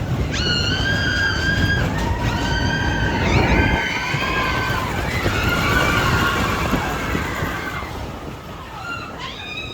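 Riders screaming on the Expedition Everest roller coaster: several long, wavering screams that overlap, over the rumble of the coaster train and wind rushing past the microphone.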